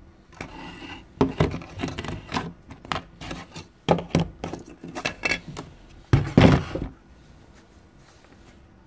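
Handling noise: the plastic housing parts of a Nokia 3310 clicking and knocking as they are pulled apart and set down on a tiled floor. There is a heavier cluster of thumps near the end.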